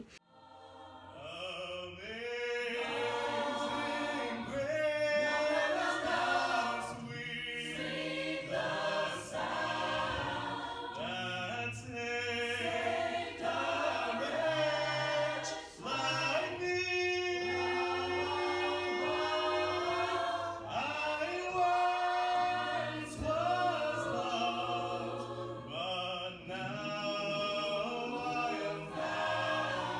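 An a cappella group of male and female voices singing together in harmony, with a low bass line under held chords; it fades in about a second in.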